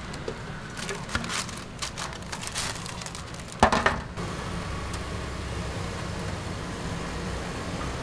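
Metal tongs clicking and scraping against a stainless steel scoop as braised duck pieces are lifted into a paper bag, with paper rustling. There is a louder clatter about four seconds in. After that a steady hiss and low hum carries on.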